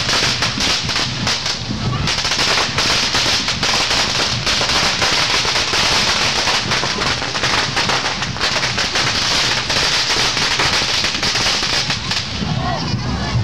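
A long string of firecrackers going off in a dense, continuous rapid crackle of bangs. Near the end the crackle gives way to voices.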